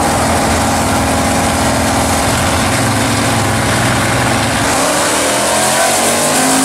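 Two drag-race cars' engines idling at the starting line, then revving with a rising pitch about five seconds in as they build toward the launch.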